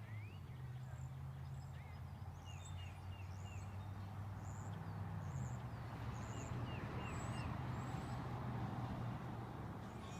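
Backyard chickens making soft fowl calls, with many short high bird chirps repeated in small groups over a steady low hum.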